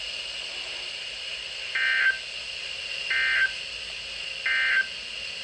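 Emergency Alert System end-of-message data signal: three short, shrill warbling digital bursts, evenly spaced about a second and a half apart, marking the end of the tornado warning broadcast. A steady hiss with a faint high whine runs underneath.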